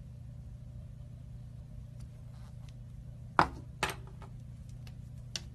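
Small plastic glitter shaker container knocked and handled: two sharp clicks a little over three seconds in and a fainter one near the end, over a steady low hum.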